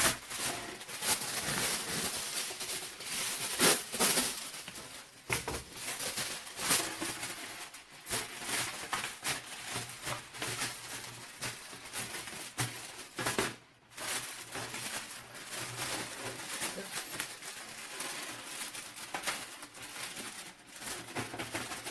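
Marinated chicken pieces being handled and laid into a baking pan: irregular knocks and clicks throughout.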